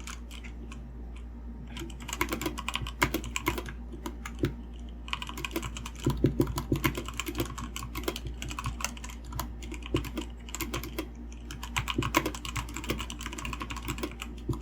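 Typing on a Redragon Fizz 60% mechanical keyboard: quick runs of keystrokes in bursts, starting about two seconds in, over a faint steady low hum.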